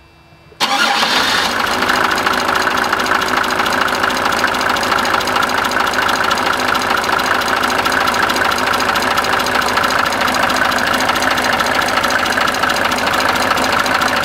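Mercedes-Benz OM603 straight-six turbo diesel catching from a cold start about half a second in, then idling steadily with a rapid clatter. It carries the ticking, clicking or knocking noise that is still undiagnosed, and which the owner cannot pin to one spot under the hood.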